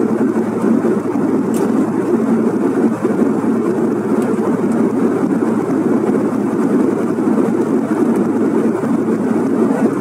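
Steady cabin noise of a Bombardier CRJ1000 regional jet in cruise: an even, low rush of engine and airflow noise with a faint steady hum under it.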